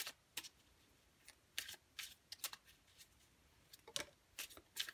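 Tarot cards being handled and shuffled off-camera: irregular light clicks and flicks of the card stock, about two a second.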